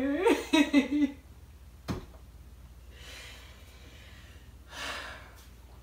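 A person laughing for about a second, then a single sharp click about two seconds in and quiet breathing while two people chug a drink, with a breathy exhale near the end.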